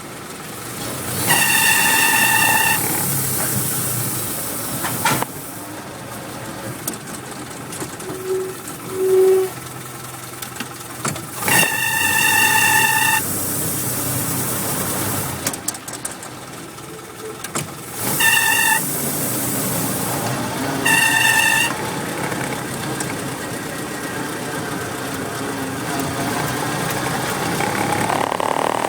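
A Willys MB's four-cylinder engine runs steadily while a high, steady squeal from the clutch group comes and goes four times, each lasting about half a second to a second and a half. The owner suspects a failing throwout bearing, or the flywheel pilot bearing, after only 1,000 miles since a rebuild.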